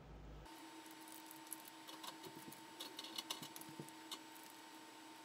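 Faint, scattered light clicks and taps as grilled snow crab legs and claws are set down one by one on a kelp-lined plate, over a faint steady hum.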